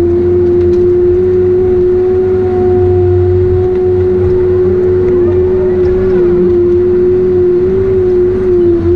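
Heavy forestry machine running steadily: a constant diesel rumble with a strong steady droning tone on top that wavers only slightly.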